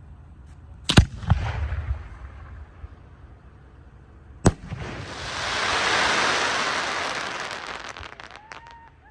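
A 5-inch aerial firework shell: a deep thump as the lift charge fires it from the mortar about a second in, with a short rumble after. About three and a half seconds later comes a sharp burst overhead, then several seconds of dense crackling that swells and fades.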